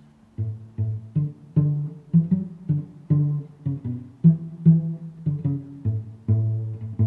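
Background music: plucked low string notes, cello or double bass pizzicato, in a bouncy line of about two or three notes a second, starting about half a second in.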